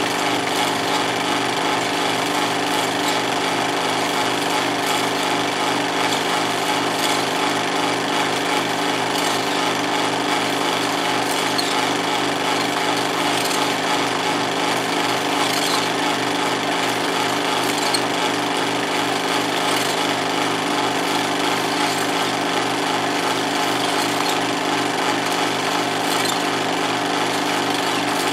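16mm film projector running: a steady, rapid mechanical clatter as the film is pulled through the gate, with a constant motor hum under it.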